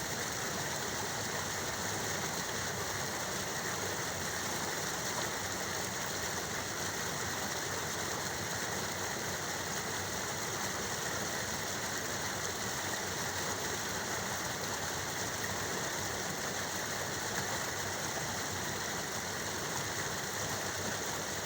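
Flowing water rushing steadily, with no breaks or separate splashes.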